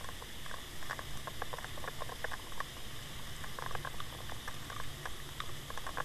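Underwater sound from a camera towed on a trolling line: a steady low rumble and hiss of water rushing past, dotted with many irregular small clicks and ticks.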